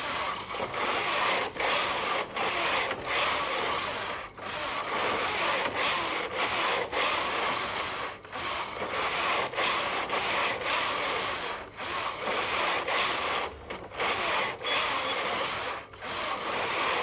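Brother KH-950i knitting machine carriage pushed back and forth across the needle bed, a rasping, rubbing whirr of the carriage sliding over the needles. It breaks off briefly about every second or so as each pass ends and the carriage is pushed back the other way.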